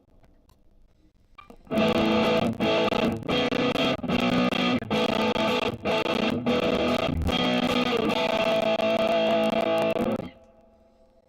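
Electric guitar played through a Mooer Solo high-gain distortion pedal: a heavily distorted riff with several abrupt short stops between chords. It starts about a second and a half in and cuts off near the end, leaving a faint ringing tail.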